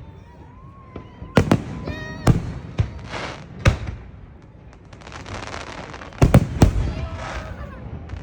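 Fireworks bursting in the air: a series of sharp bangs with crackling between them, and the loudest cluster of bangs about six seconds in.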